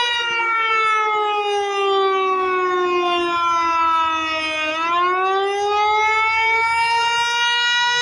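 Eclipse 8 outdoor warning siren sounding a test wail. Its pitch slides slowly down for about four and a half seconds, then climbs back up and holds steady.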